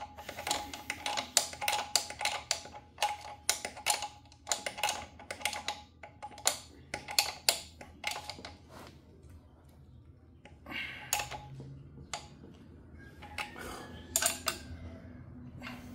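Hand wrench clicking rapidly as it turns the nut on an engine-mount bolt, metal on metal; the clicking is dense for the first half, then comes in shorter, sparser spells.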